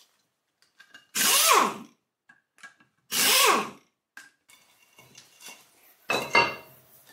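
Pneumatic impact wrench with a 13mm socket running in two short bursts about two seconds apart, each with a falling whine, undoing the bolts that hold the brake disc to the hub. Near the end, the steel disc clanks with a brief metallic ring as it is handled.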